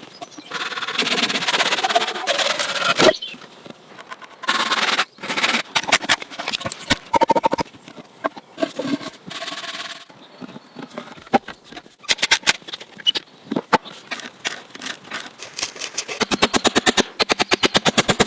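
Hand work on wood: a run of knocks and scraping, ending in a fast, even series of strokes near the end.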